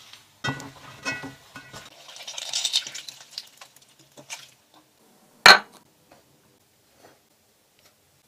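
A metal spoon clinks against an enamel basin with a brief ring. Then comes a soft, high rustling hiss as salted oyster mushrooms are worked by hand, and a single sharp click about five and a half seconds in.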